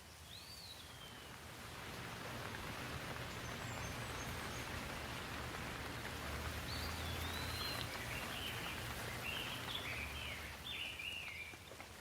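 Steady rain hiss that swells over the first couple of seconds and eases near the end. A bird calls over it: one rising-and-falling whistle near the start, then a run of short chirps in the second half.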